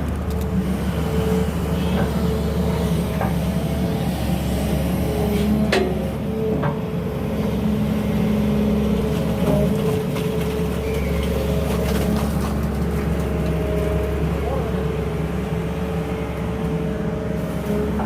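Sany 220 hydraulic excavator working: the diesel engine runs steadily under load with a tone from the hydraulics that shifts in pitch. A few sharp knocks break in, the loudest about six seconds in.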